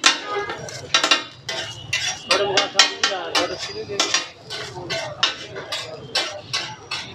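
Metal cooking utensils clanking and scraping against metal in quick, irregular strikes, several a second, some with a short ring.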